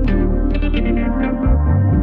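Background music: short repeated notes over held bass notes, with the bass changing about one and a half seconds in.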